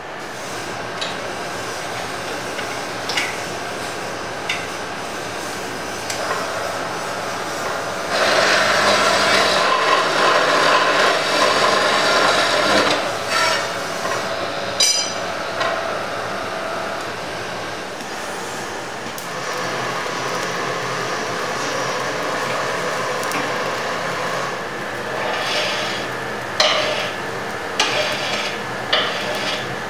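Metal-cutting circular saw (cold saw) running and cutting through a steel bar clamped in its vice: a steady machine hum with a grinding rasp that grows louder for several seconds in the middle. Near the end, a few sharp metallic clanks.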